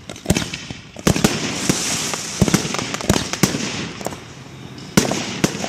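Aerial fireworks display: shells bursting in quick succession, a string of sharp bangs, with a steady hiss between them as glittering comets rise.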